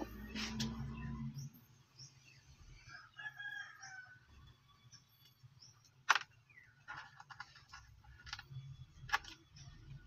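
A rooster crows faintly about three seconds in. Later come a few sharp clicks and scrapes as a metal power steering pump part is rubbed and set down on wet sandpaper over glass, the loudest click about six seconds in.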